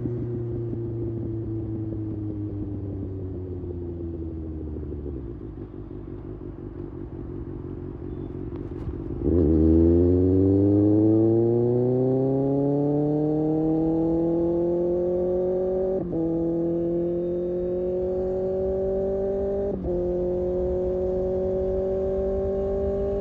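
Kawasaki Ninja ZX-6R inline-four engine under way. The engine note falls as the bike slows, then about nine seconds in the throttle opens sharply and the revs climb steadily, broken by two brief dips.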